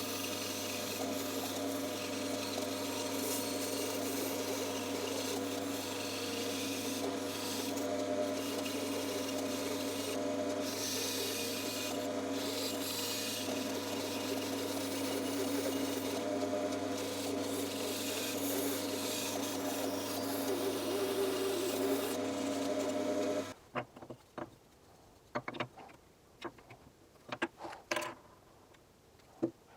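Bandsaw running and cutting wood, a steady motor hum under the rasp of the blade through the stock. About three quarters of the way through it cuts off suddenly, leaving a few light knocks and taps.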